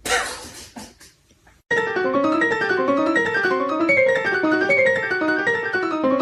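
A short noisy rush at the very start that fades within about a second, then background piano music with quick, bouncing notes starts about a second and a half in.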